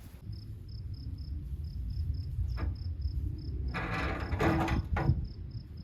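Crickets chirping in a steady rhythm, about four chirps a second, over a low rumble, with a short scraping rustle about four seconds in and a couple of sharp knocks.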